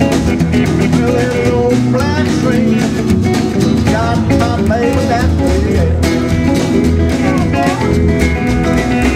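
Live rockabilly band playing: an electric hollow-body guitar takes a lead line full of string bends over upright bass, strummed acoustic guitar and snare drum.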